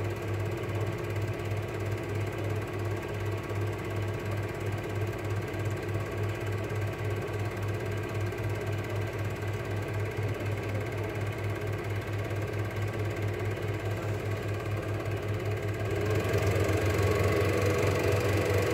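Cine film projector running: a steady mechanical whirr and hum with a rapid flutter, a little louder for the last few seconds.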